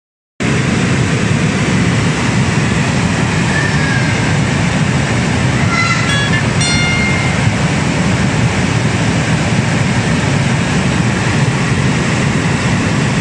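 Flash flood of muddy water and debris rushing down a river channel, a loud, steady rush with a deep rumble underneath.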